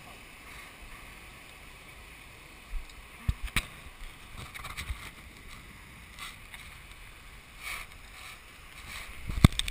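Steady background wash of wind and distant surf, with a few sharp knocks from the handheld GoPro being jostled: two about three seconds in and the loudest near the end.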